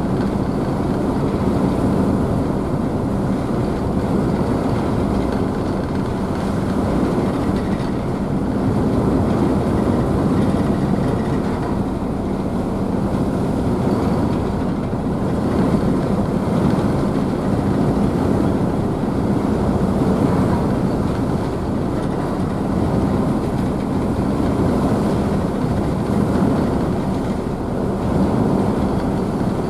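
Ferry's engines droning steadily with a constant low hum, mixed with the rush of the wake and wave spray behind the stern.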